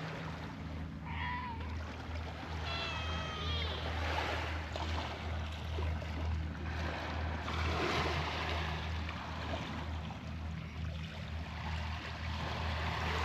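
A cat meows twice, a short call about a second in and a longer, wavering one about three seconds in, over a steady low hum and an even outdoor wash of noise.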